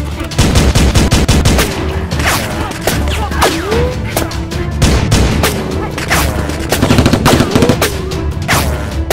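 Rapid, machine-gun-style gunfire sound effects firing in quick strings over a music track with a heavy low bass.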